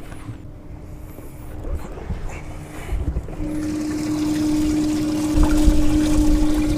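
Bass boat livewell's aerator pump running with a steady hum while water sprays and churns in the livewell. The hum and the splashing grow much louder about three and a half seconds in, once the livewell is open, with some handling knocks.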